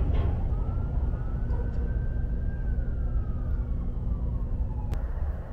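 A distant siren wails once, its pitch rising a little and then sliding slowly down, over a steady low rumble. A sharp click comes near the end, and the rumble changes after it.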